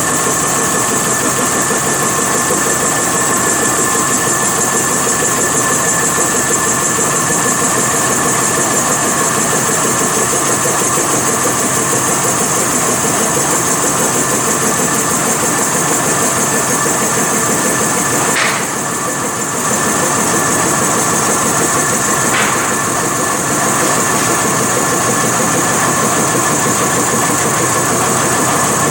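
CNC wood lathe running and cutting a large wooden workpiece: a steady machine noise with high, constant whining tones. It eases off briefly twice past the middle.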